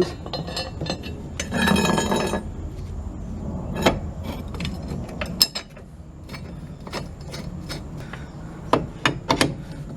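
Metal clinks and clicks of a steel wheel bolt being put through a homemade angle-iron tool and threaded in by hand, with a short rattling scrape about one and a half seconds in.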